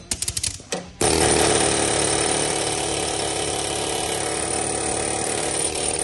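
A rapid clatter for about a second, then a loud power tool starts abruptly and runs steadily, working on the steel of a dozer ripper box during bushing removal.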